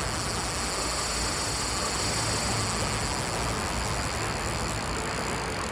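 Steady rushing of river current, an even noise that holds at one level with no clicks or rhythm.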